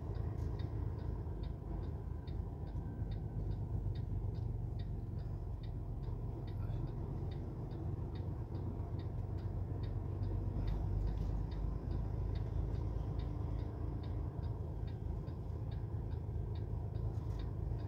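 A vehicle's turn-signal indicator ticking steadily, a few clicks a second, over the low hum of the engine.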